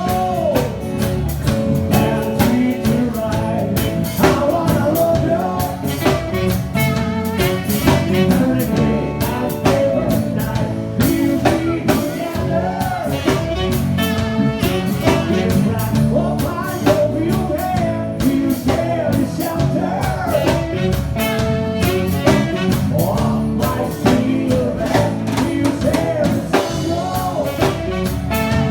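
A band playing a rock cover song on drum kit and guitar, with a wavering lead melody line over a steady beat.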